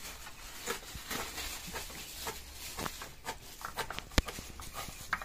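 Irregular light taps and clicks of kitchen prep: a knife chopping greens on a plastic cutting board and garlic cloves handled in a clay mortar. One sharper knock comes about four seconds in.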